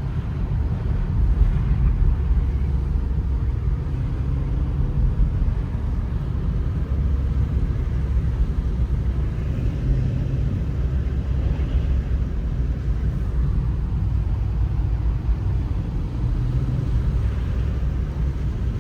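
Steady low rumble of a car's engine and tyres, heard from inside the cabin while driving on a snowy road.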